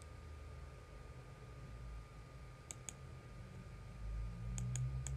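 Computer mouse clicks, in two quick pairs about three seconds in and again near the end, over a faint steady background hum.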